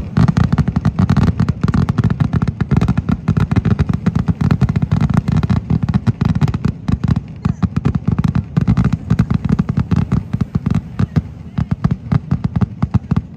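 Dense, rapid barrage of fireworks going off, bang upon bang in quick succession, thinning out near the end.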